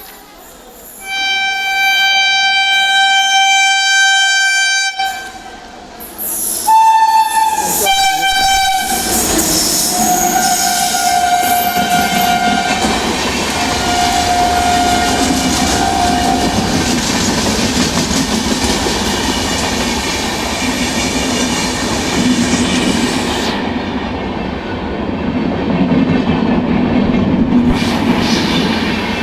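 Train horn: one long blast of about four seconds, then several shorter blasts, the first stepping down in pitch. Then the steady rumble and wheel clatter of the train rolling past on the rails.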